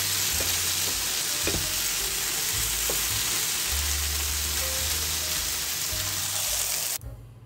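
Food sizzling steadily in a hot pan, with a few light taps of a utensil as it is stirred; the sizzle cuts off abruptly about seven seconds in.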